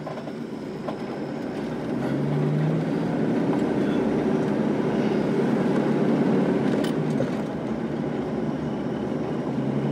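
Jeep Wrangler TJ's engine and road noise heard from inside the cab while driving. It grows louder over the first couple of seconds as the Jeep picks up speed, and the engine note rises briefly.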